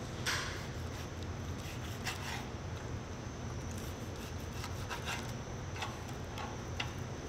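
A knife knocking on a cutting board a handful of times at uneven intervals as pork is cut into small cubes, over a steady low hum.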